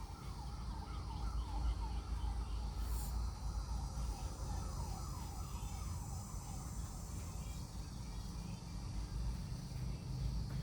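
Radio receiver putting out static and a low hum, with a run of short falling whistles repeating about three times a second that fade out after about seven seconds.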